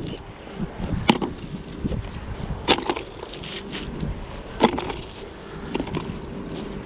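Scrap metal picked up by a fishing magnet clinking and knocking as it is pulled off and handled. There are several sharp knocks spaced a second or two apart over wind noise.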